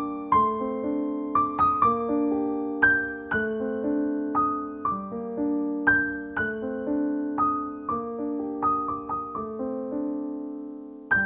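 Background piano music: single notes struck one after another over lower chords, each left to ring and fade.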